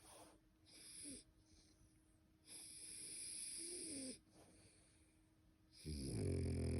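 French bulldog snoring in its sleep: two quieter, airy, wheezy breaths, then a loud, deep snore starts about six seconds in.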